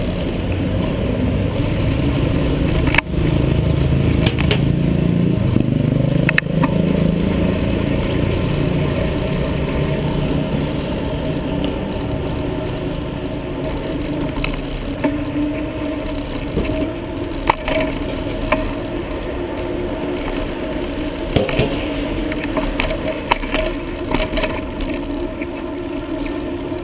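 Steady rumble of wind and road noise picked up by a helmet-mounted GoPro on a moving bicycle, with a few sharp knocks and rattles scattered through it.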